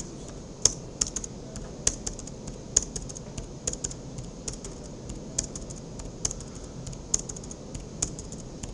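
Computer keyboard being typed on: short, sharp key clicks at an irregular pace, a few a second, as commands are typed and Enter is pressed.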